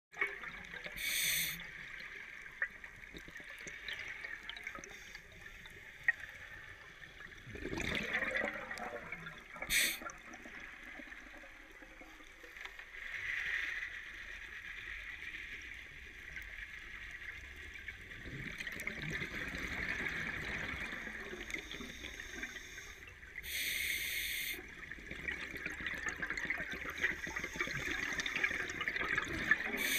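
Underwater sound of a scuba diver's regulator over a steady underwater hiss. Brief hissing breaths come every several seconds, and a burst of exhaled bubbles sounds around 8 seconds in.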